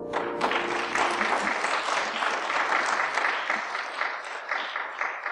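Church congregation applauding, beginning at once and thinning out near the end, while the last held piano chord dies away in the first second.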